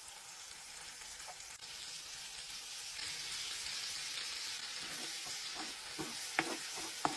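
Tinned beans with sausages and meatballs sizzling in an oily frying pan, the steady sizzle growing a little louder a few seconds in. From about five seconds in, a spoon stirs the pan, adding a few sharp clinks and scrapes.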